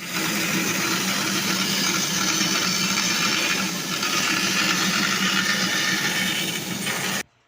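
Electric power tool motor running steadily with a low hum under a loud even whir, stopping abruptly near the end.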